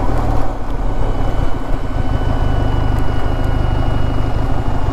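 Benelli TRK 502's 500 cc parallel-twin engine running steadily, a dense low pulsing rumble, with a faint thin steady whine above it.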